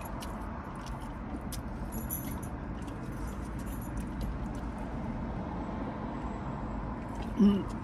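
Steady low rumble inside a parked car, with a few faint light clicks. A short hummed voice sound comes near the end.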